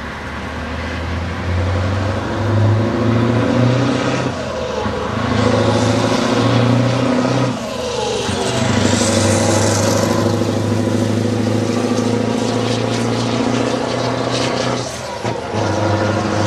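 Scania 143 V8 truck engine pulling hard as it accelerates, with short breaks in the pull at about 4, 7.5 and 15 seconds for gear changes. The truck passes close by about halfway through.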